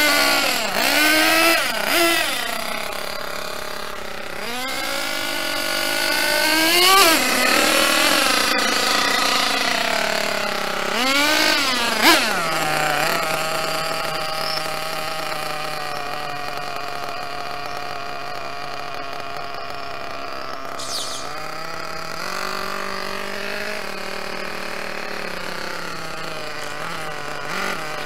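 Kyosho Nitro Mad Crusher 1/8-scale RC monster truck's small nitro (glow-fuel) two-stroke engine revving up and down in several bursts as the truck is driven. The pitch drops sharply about twelve seconds in, and the engine then runs steadily at a lower pitch.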